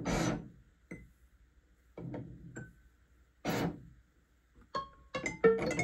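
Buchla 208 Music Easel synthesizer playing a program-card patch in both mode, the card and front-panel settings combined: a few sparse noisy percussive hits with near-silent gaps between them, then from about five seconds in a quick run of short plucked pitched notes.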